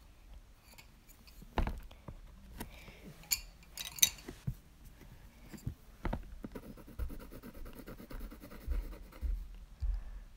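Coloured pencil scratching on a paper card in quick back-and-forth strokes, with several sharp clicks and knocks in the first half and a few soft low bumps near the end.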